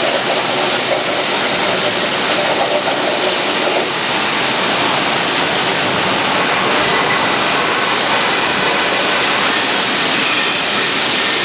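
CNC plasma cutting torch cutting steel plate on a water table, giving a loud, steady hissing rush.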